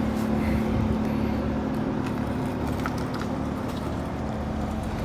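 BMW 535xi wagon's engine running steadily at idle, a low even hum.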